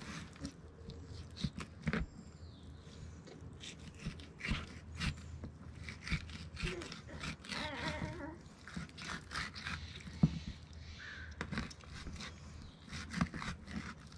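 Fillet knife sliding and scraping between a lingcod fillet and its skin on a plastic cooler lid, skinning the fish: irregular soft scrapes and taps, with one sharp knock about ten seconds in.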